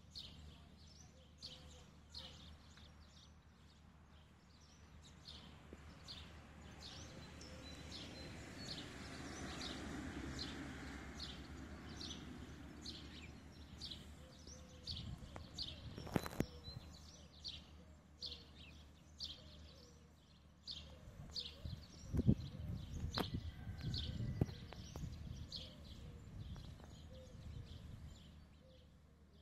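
Small birds chirping over and over, a few short high chirps a second, over faint outdoor background noise. A low rumble swells and fades about a third of the way through, and a few sharp knocks come in the second half.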